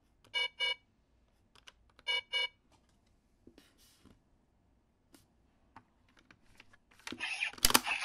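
CSM Drag Visor toy gauntlet: two short electronic beeps, then the same pair again about two seconds in. Light plastic clicks follow as a card is loaded into the opened visor. Near the end the visor snaps shut with a sharp click inside a louder burst of electronic sound.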